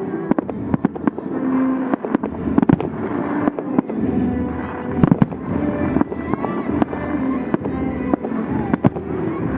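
Fireworks salute: shells bursting in a rapid, irregular series of sharp bangs over a steady crackling rumble, with crowd voices underneath.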